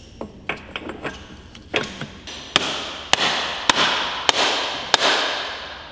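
Hammer blows on a metal differential housing: a few lighter taps, then five hard strikes about 0.6 s apart, each ringing on as it fades.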